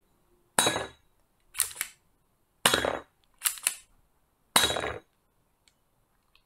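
A mini metal 1911-style gel blaster being fired: three sharp shots about two seconds apart, each with a short ringing tail. A quick double clack falls between each pair of shots.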